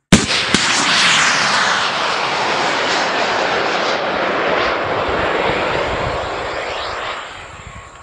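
Missile launch: a sharp bang as the motor ignites, then a loud rushing noise that holds steady for about seven seconds and fades away near the end.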